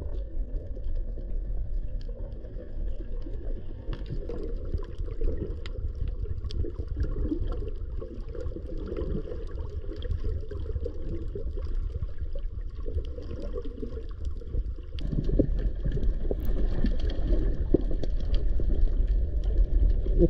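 Muffled underwater sound picked up by a submerged camera: a steady low water rumble and swish, sprinkled with faint clicks and crackles, growing louder about three-quarters of the way through.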